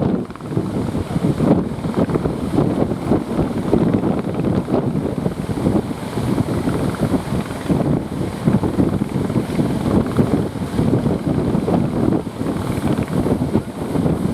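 Strong wind buffeting the microphone in a rapid, uneven flutter, over the noise of heavy surf.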